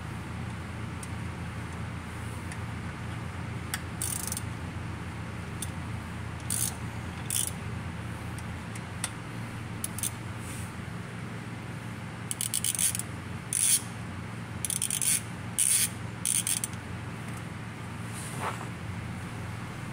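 Hand socket ratchet clicking in short spurts as bolts on an automatic transmission's valve body are worked. A steady low hum runs underneath.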